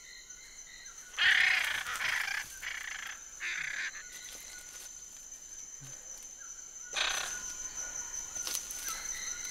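Harsh macaw squawks: a cluster of three in the first four seconds and another about seven seconds in, over a steady high-pitched tone.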